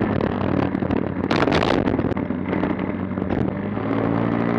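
A Tao Tao 50cc GY6 four-stroke scooter engine running steadily at speed in a left-hand lean, with wind on the microphone. About a second and a half in comes a harsh scraping burst as the center stand drags on the pavement.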